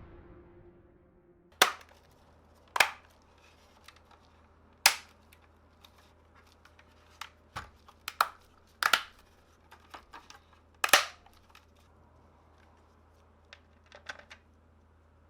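A series of sharp, irregular clacks and knocks from hard objects being handled and set down, about a dozen in all, with a few lighter ticks near the end, over a faint steady hum. Music fades out at the very start.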